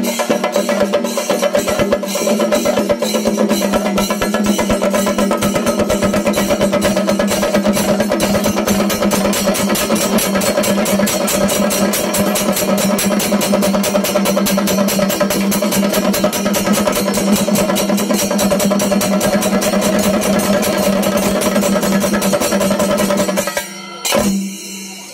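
Chenda melam: a group of chenda drums beaten with sticks in a fast, even roll, with ilathalam hand cymbals clashing along. The strokes quicken through the middle, and the drumming stops abruptly about a second before the end.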